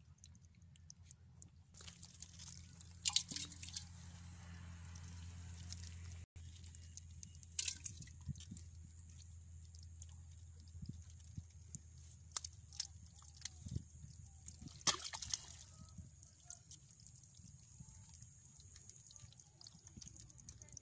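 Wet mud squelching and sloshing as hands grab live fish flopping in a shallow muddy pool, with a few sharp wet slaps, the loudest about three seconds in and again near fifteen seconds. A low steady hum runs underneath.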